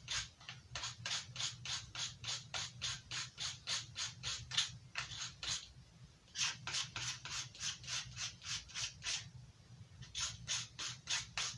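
A knife blade drawn over and over through a handheld grit sharpener in quick rasping strokes, about four a second. There is a run of about twenty strokes, a brief pause, about ten more, then another run begins near the end.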